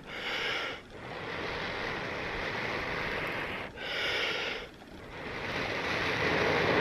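A person blowing long, steady breaths onto a smouldering cedar-bark tinder nest lit with a char cloth ember, to bring it to flame. Three long blows with a short, sharp breath drawn in before the second and third, the last blow growing louder near the end.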